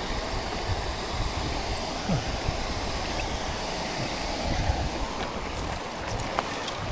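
Mountain bike rolling along a dirt trail: a steady rush of tyre and trail noise with a few light rattles, and gusty wind on the microphone.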